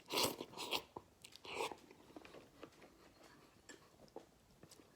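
A person eating soupy instant ramen noodles: a few short slurps in the first two seconds, then quieter chewing with small mouth clicks.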